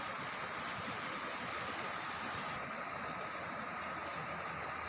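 Steady rushing of water, with a few faint, brief high-pitched peeps over it.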